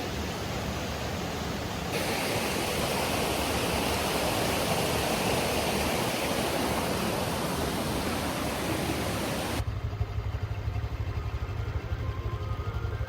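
Waterfall rushing: a dense, steady roar of falling water that grows louder about two seconds in. Near the end it cuts off abruptly to a low, fluttering rumble.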